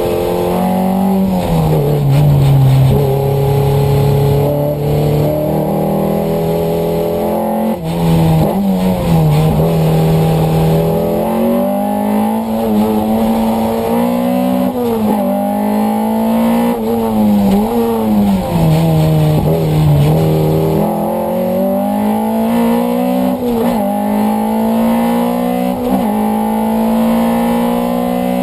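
Alpine A310's 1800 cc engine heard from inside the cabin, driven hard on a track. The engine pitch climbs under acceleration and drops sharply at each gear change, with a run of quick shifts and lifts in the second half.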